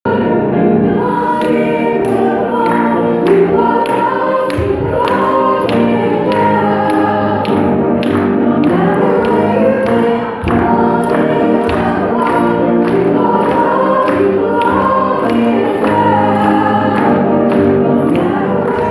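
Choral gospel-style music: a choir singing over instrumental accompaniment with a steady beat.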